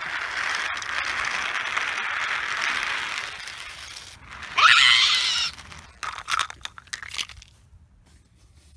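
A runaway train effect: a steady rushing, crunching rattle for about four seconds, then a loud rising squeal about a second long, then a few sharp clattering crashes as the train comes off the line.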